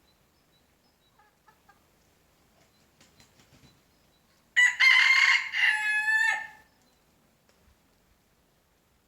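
A rooster crows once, a single loud crow of about two seconds starting about halfway through, ending on a held note. A few faint short calls come before it.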